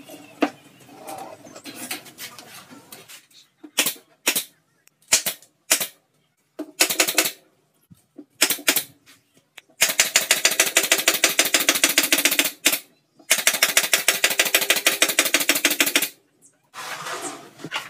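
Pneumatic nail gun firing into the panels of a particleboard subwoofer cabinet. There are a few single sharp shots, then two runs of rapid firing of about three seconds each.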